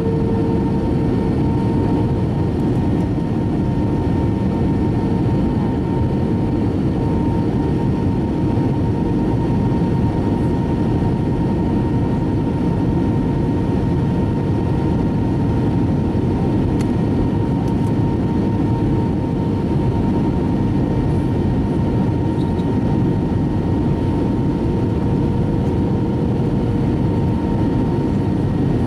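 Steady cabin noise inside an Airbus A320 airliner in descent: a dense rumble of engines and rushing air, with a faint steady hum running through it.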